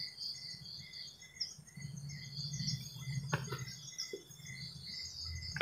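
Crickets chirping steadily, about three chirps a second, over a faint low hum, with a couple of faint knocks a little past the middle.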